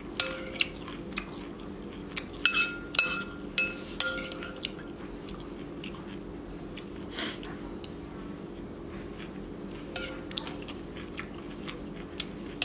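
Metal spoon tapping and scraping against a glass bowl, with short ringing clinks: a run of them in the first four seconds and a couple more about ten seconds in. Chewing between the clinks, over a steady low hum.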